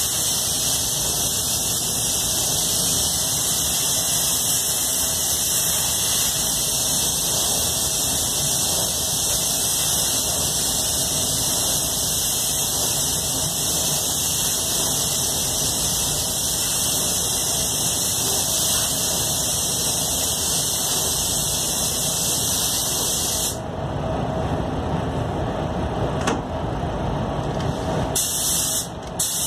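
Iwata Supernova gravity-feed spray gun spraying clear coat onto a car body: a steady hiss of compressed air through the gun. It cuts off about six seconds before the end, and a few short bursts follow near the end.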